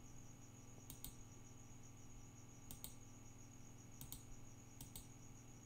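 Near silence with four faint pairs of quick computer-mouse clicks about a second apart, over a faint steady electrical hum.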